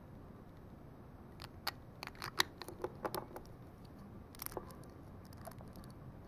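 Black Lego bricks and plates clicking as they are handled and pressed together by hand: a quick run of sharp plastic clicks for about two seconds, then a short cluster of clicks a second later.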